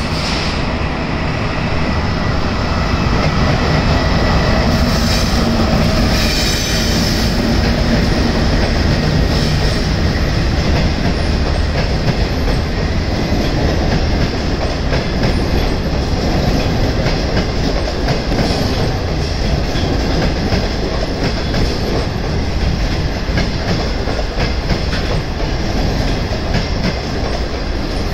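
SS9 electric locomotive hauling 25Z passenger coaches passing close by: the locomotive goes by in the first several seconds, then the coaches roll past with steady wheel-on-rail clatter. The clatter continues until the last coach draws away.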